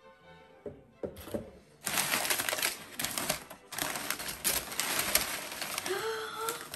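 Crumpled brown kraft packing paper rustling and crinkling as it is handled inside a cardboard box, a dense crackle of rapid clicks that starts about two seconds in after a few light knocks. A voice comes in near the end.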